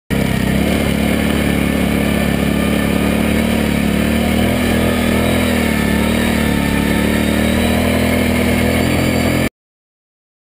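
ATV engine running at a steady, fairly even speed under a constant rush of noise, its pitch wavering slightly midway. The sound cuts off abruptly near the end.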